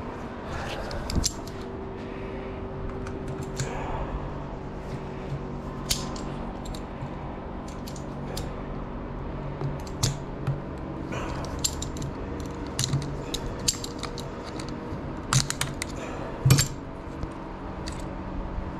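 Scattered metallic clinks and taps of tools and parts as a seized lawn-tractor starter motor is taken apart on a workbench, over a steady hum. The two loudest clicks come close together near the end.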